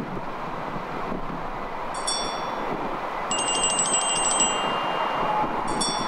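High chime tones ringing over steady outdoor background noise: a short chord about two seconds in, then a quick run of tinkling notes lasting about two seconds, then the same short chord again near the end.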